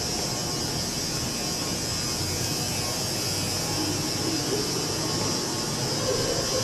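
Metro station escalator running with a steady mechanical buzz and hum and a constant high whine, with faint pitched tones coming and going near the end.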